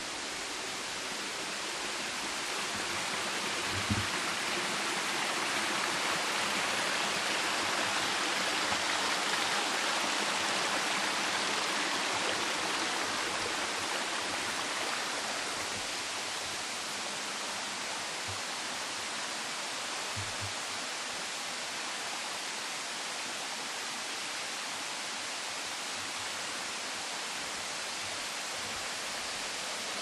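Mountain stream rushing over rocks: a steady hiss of running water that grows louder over the first few seconds, is loudest around ten seconds in, and eases back by about sixteen seconds. A few soft low thumps.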